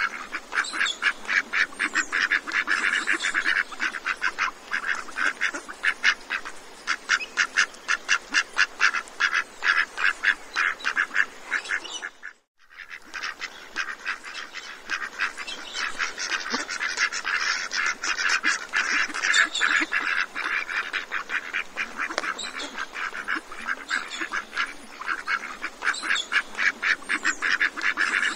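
A large flock of ducks quacking in a dense, continuous chorus of rapid overlapping calls during a feeding frenzy. The sound breaks off for about half a second some twelve seconds in, then resumes.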